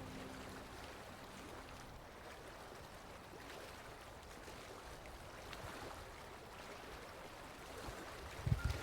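Small sea waves lapping and trickling at the shoreline, a faint, even wash of water. A few low thumps come in near the end.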